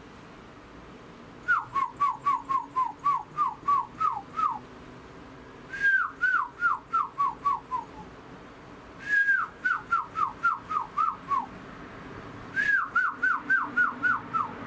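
A bird calling in four runs of quick, clear whistled notes, each note sliding down in pitch, about four notes a second with short pauses between runs.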